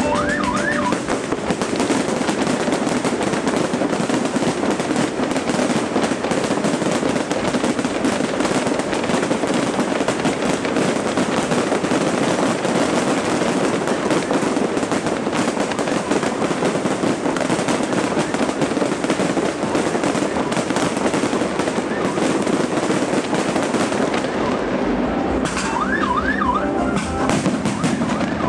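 A dense fireworks barrage: continuous rapid crackling and popping of many shells bursting together, with a few brief wavering whistles near the end.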